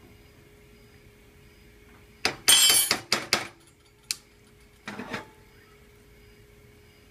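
Kitchen clatter from a frying pan and spatula on a gas stove: after two quiet seconds, a burst of clinking and clattering impacts, then a single sharp click and a softer knock.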